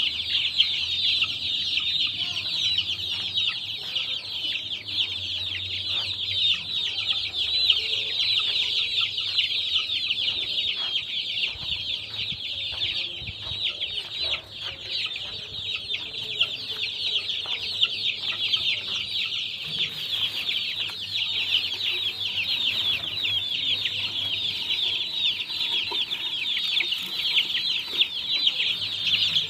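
A flock of young chicks peeping continuously, many short high chirps overlapping into a dense chorus, over a faint low steady hum.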